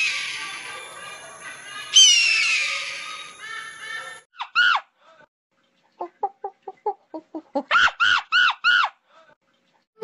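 Animal calls: two long, falling screeches that trail off with an echo, then a pair of short arched cries, a quick run of short chirping notes, and four arched squeals in a row near the end.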